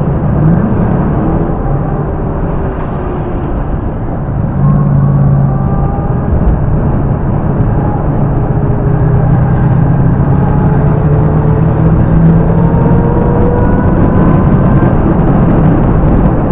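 A 1967 Chevrolet Camaro's engine running under way with road noise, heard from inside the car. About four and a half seconds in the engine gets louder and its pitch climbs slowly as the car gains speed.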